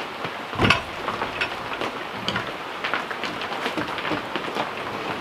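A cant hook biting into a squared log on a sawmill bed as the log is levered over, with one solid knock about a second in. Underneath is a steady patter of small ticks.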